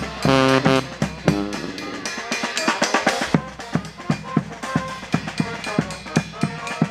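Marching brass band playing. Sousaphone and horns hold loud notes over the drums for about the first second and a half. Then the bass drum, with its mounted cymbal, and the snare carry a steady quick beat under quieter horn lines.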